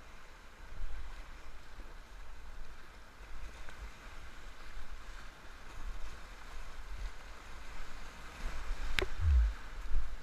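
Muffled low rumble of river whitewater heard through a closed helmet-camera housing while kayaking, with a sharp knock about nine seconds in followed by a brief low thump.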